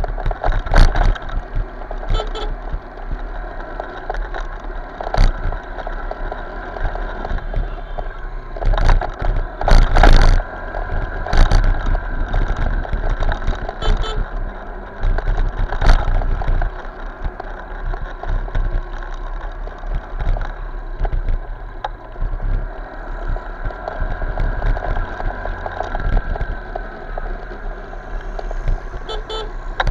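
Motorcycle ride recorded on an action camera: steady low wind rumble on the microphone with engine and road traffic noise, and occasional sharp knocks, the loudest about ten seconds in.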